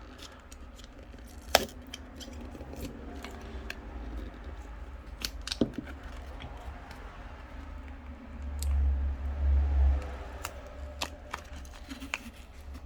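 Plastic pry tool scraping and clicking along the edge of a smartphone's plastic back cover as it is worked free, with a few sharp clicks, the loudest about a second and a half in and again near six seconds. A low rumble of handling comes about two-thirds of the way through.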